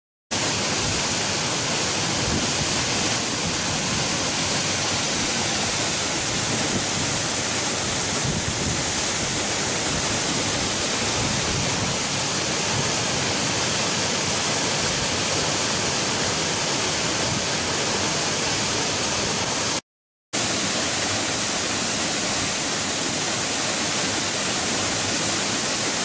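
Mikaeri Falls, a tall waterfall, pouring into its plunge pool: a steady, loud rush of falling water, cut off briefly about twenty seconds in.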